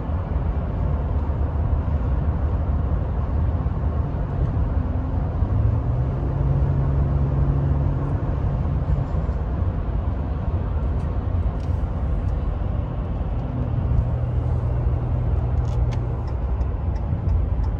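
2018 Ram 1500 Big Horn pickup driving at road speed, heard from inside the cab: a steady low road-and-engine rumble. A steady engine hum rises above it twice, for a few seconds each time.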